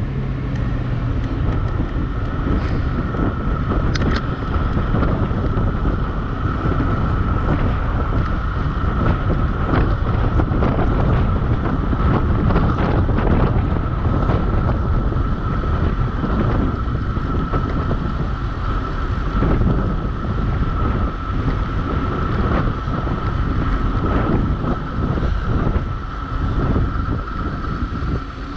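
Heavy wind buffeting the microphone on a fast downhill ride, a dense steady rumble, with a thin, steady high-pitched whine running underneath.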